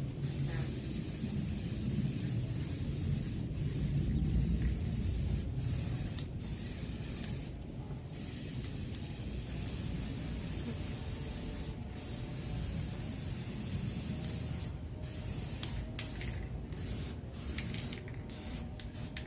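Aerosol can of black spray paint hissing in long spurts with many brief breaks between them, over a low rumble of wind on the microphone.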